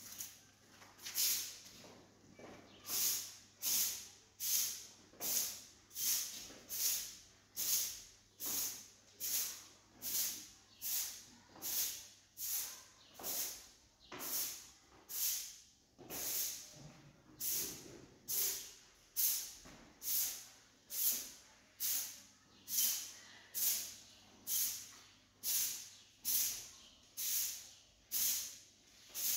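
Rhythmic swishing strokes of a brush over a surface, about one a second, each swelling and fading.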